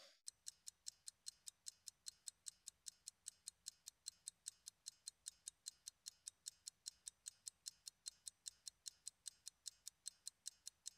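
Clock ticking evenly and quickly, about four sharp ticks a second.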